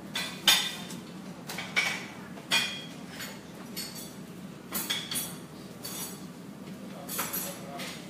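Dishes and cutlery clinking, short sharp clinks that come irregularly about once a second, over a steady low hum.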